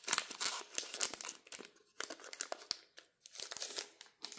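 Foil wrapper of a Pokémon card booster pack crinkling and being torn open, in irregular crackles and small clicks that thin out near the end.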